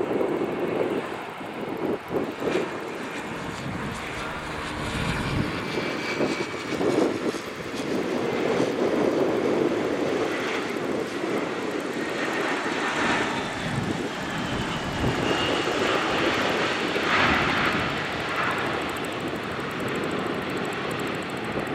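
Airbus A321 jet engines running as the airliner lands: a steady engine noise with a thin high whine that slides in pitch partway through, as it passes close by and rolls out along the runway.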